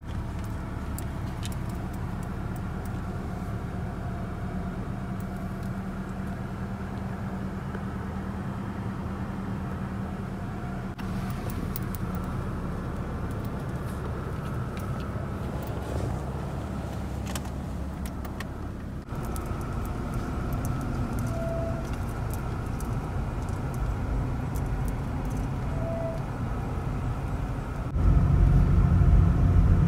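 Car engine and road hum heard from inside the cabin, steady and low throughout. It grows louder near the end as the car gets moving.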